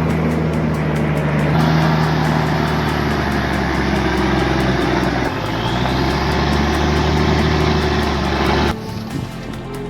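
Heavy diesel vehicle engine running steadily with a deep hum and a wash of mechanical noise. The sound shifts abruptly about a second and a half in and drops much quieter near the end.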